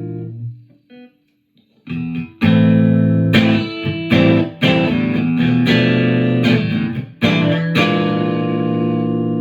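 Harley Benton JA-60CC electric guitar being strummed. A ringing chord is damped, and after a brief pause a series of sharply struck chords follows; the last chord, about three-quarters of the way in, is left to ring out.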